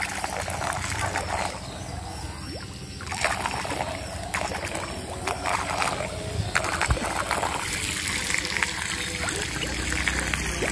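Water splashing and trickling, with scattered small splashes over a steady wash.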